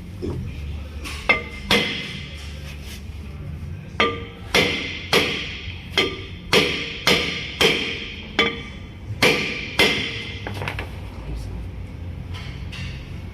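A hammer striking metal brake parts, each blow ringing: two blows about a second in, then a run of about ten evenly spaced blows, roughly two a second, that stops about two-thirds of the way through.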